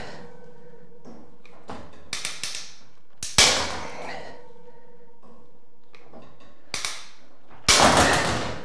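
Large bolt cutters snapping through the steel wires of a wire shelf one cut at a time. There are sharp metallic snaps, the loudest about three and a half seconds in and a quick cluster near the end. Lighter clicks come between them as the jaws are set on the next wire.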